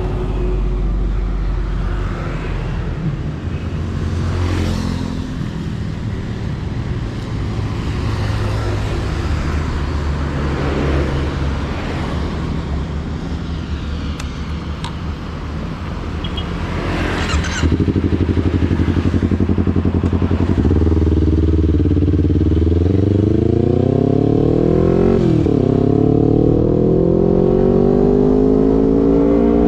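Kawasaki Ninja 250's parallel-twin engine running through an aftermarket R9 GP SS exhaust. A low steady rumble for the first half suddenly gets louder a little past halfway. It then climbs in pitch under acceleration, dips sharply once about three-quarters through, and climbs again.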